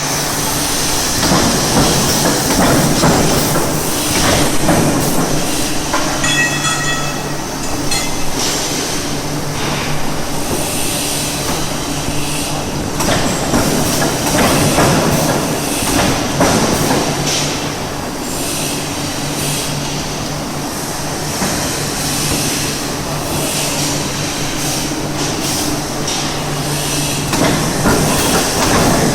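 1000-ton forging press running: a steady machine hum with louder rumbling, clanking surges every few seconds, and a brief high squeal about seven seconds in.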